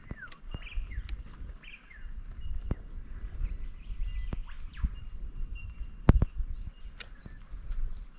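Footsteps and sharp knocks of boots on rock, the loudest about six seconds in, over a steady low rumble. Short bird chirps in the first two seconds.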